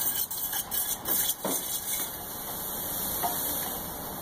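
Steel threaded screw of a Hydrascrew mini jack press being turned down by its T-handle: light scraping and clicking for about the first second and a half, then a steady hiss.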